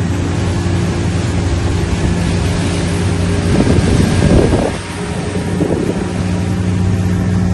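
Boat motor running steadily, its pitch shifting around the middle, with wind buffeting the microphone.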